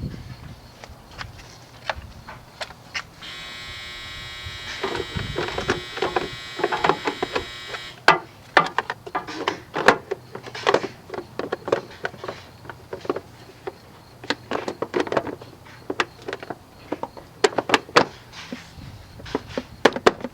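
Repeated sharp clicks and knocks, like hand tools and parts being handled, with a small electric motor whirring steadily from about three seconds in until about eight seconds in.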